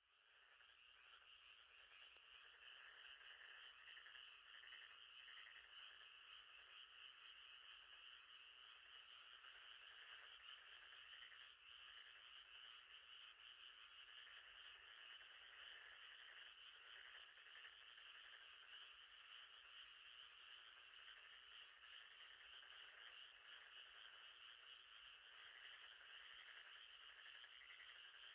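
Faint, steady night chorus of frogs calling in a dense, rapidly pulsing trill. It fades in over the first couple of seconds.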